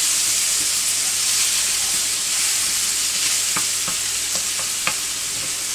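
Brussels sprouts, bacon and butter sizzling in a stainless steel sauté pan, stirred with a wooden spoon. The spoon knocks against the pan a few times in the second half.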